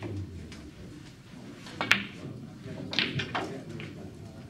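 Snooker balls clicking on a shot: one sharp click about two seconds in, then a few quicker knocks about a second later as a red runs down to the cushion.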